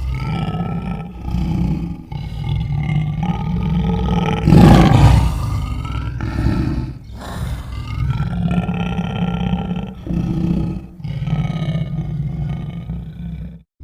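Lion roars and growls used as a film sound effect: a series of long, low, rough calls with short breaks between them, the loudest about four and a half seconds in. The sound cuts off briefly just before the end.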